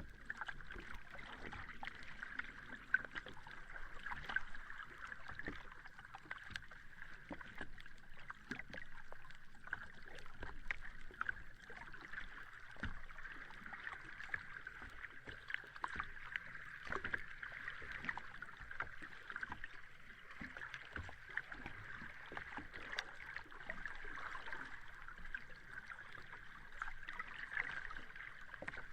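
Sea water lapping at the shore, a steady fizzing of many small splashes without large wave surges.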